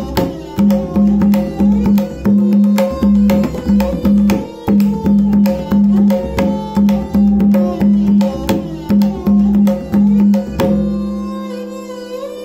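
Tabla pair (dayan and bayan) played fast in teentaal, a Lucknow gharana kayda, with ringing strokes over a steady melodic accompaniment. The drumming stops with a final stroke a little before the end, leaving the accompaniment sounding alone.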